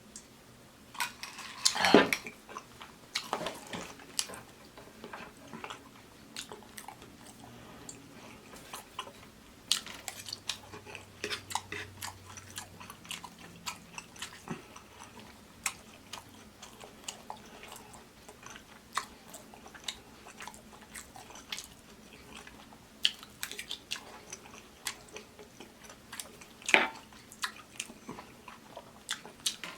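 Close-miked eating: wet chewing and lip-smacking on oxtail meat, with frequent short clicks and clinks of cutlery or dishes. Louder smacks come about two seconds in, again a second or so later, and near the end.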